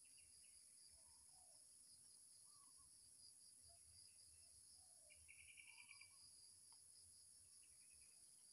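Faint, steady, high-pitched insect chorus of crickets or cicadas in tropical forest, with a few short bird calls and a brief rapid chirping trill about five seconds in.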